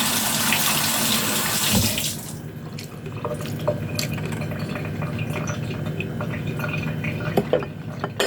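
Water running from a tap into a sink, shut off about two seconds in, followed by scattered small clicks and knocks.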